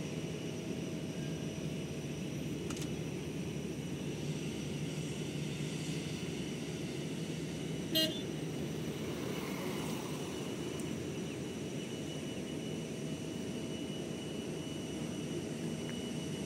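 Jet engines of an Airbus A320-family airliner running as it moves along the runway: a steady low rumble with a faint high whine over it. A brief click about eight seconds in.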